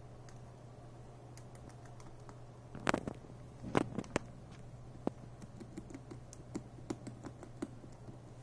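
Rabbit gnawing on an applewood stick: a run of small, crisp crunching clicks at a few per second, with a few louder knocks about three to four seconds in.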